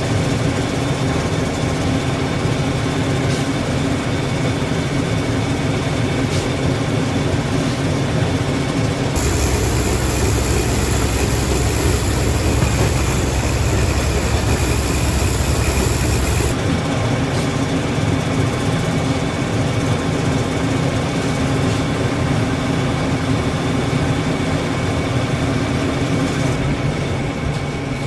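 Minneapolis Moline corn sheller running steadily under load, shelling ear corn, together with the steady drone of a tractor engine. For several seconds in the middle the low rumble is deeper and louder.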